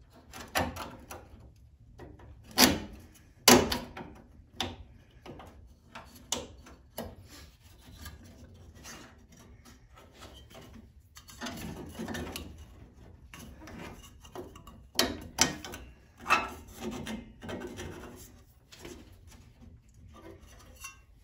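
Headlight mounting ring and its tension spring being worked into a 1977 Chevy Camaro's headlight housing by hand: scraping and rubbing of the parts, with irregular sharp clacks, the loudest two close together about three seconds in and another few around fifteen seconds.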